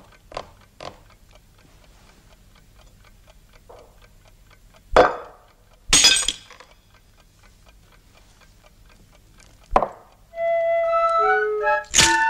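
A clock ticking steadily in a quiet room, broken by three loud, sharp knocks as a rock-hard cookie is struck against a china plate, which cracks into pieces. A bouncy organ-like tune starts up near the end.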